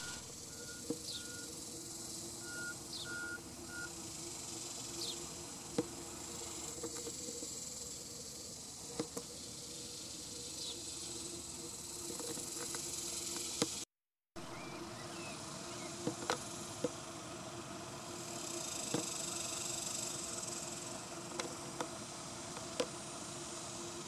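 Steady high-pitched drone of insects, with a short run of even bird notes at the start, a few brief falling bird chirps in the first half, and scattered sharp ticks.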